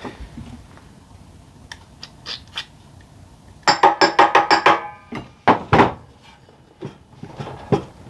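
Hammer blows on a steel centrifugal clutch rusted onto a small engine's shaft: a fast run of about eight ringing metal strikes, then a few slower ones.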